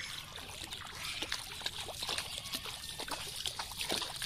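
Shallow water splashing and dripping in quick, irregular splashes, stirred by wading feet and by a snakehead fish held up on a pronged fishing spear.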